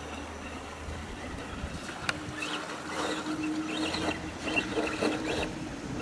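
Axial Wraith RC rock crawler's electric motor and geared drivetrain whining steadily from about two seconds in, with scattered clicks and knocks as it crawls over rock.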